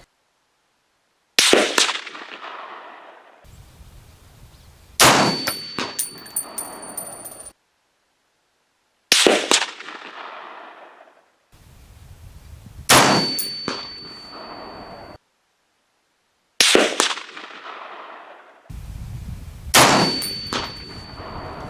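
M1A rifle shots, about six in all, each a sharp report with a fading echo, in separately cut clips. Several carry a metallic ringing clang from bullets hitting a steel post.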